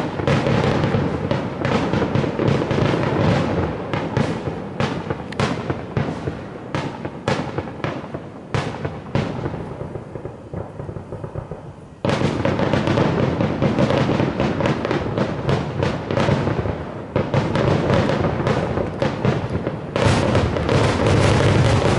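Aerial fireworks bursting: a dense, continuous run of bangs and crackles from exploding shells. It thins out and grows quieter for a few seconds past the middle, then jumps suddenly louder, and again near the end.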